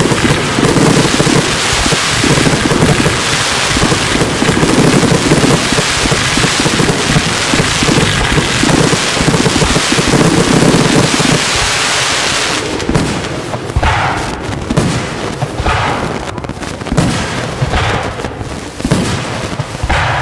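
A ground fireworks fountain spraying sparks with a dense, unbroken crackling hiss, which cuts off about two-thirds of the way through. Several separate sharp bangs of aerial firework shells follow.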